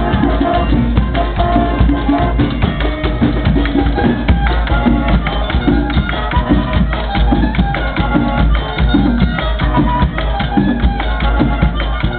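Marching band playing: drums and percussion keep a quick, steady beat under a melody on pitched instruments.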